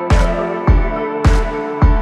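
Background music with a steady beat, about two beats a second, over sustained chords.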